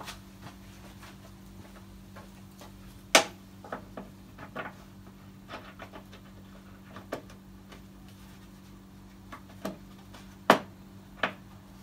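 Irregular metallic clicks and knocks of a 13 mm wrench being fitted and worked on a bolt deep in a car's engine bay, with two louder knocks, one about three seconds in and one near the end. A steady low hum runs underneath.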